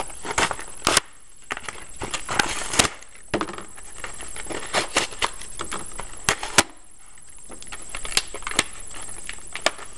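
Cardboard and clear plastic blister packaging being pulled and worked open by hand: irregular sharp snaps and crackles with rustling in between.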